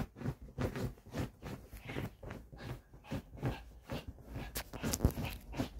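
Quilted bedding scraping and rustling under a Pomeranian scuffling about on it: a quick, irregular run of short scrapes, about three or four a second.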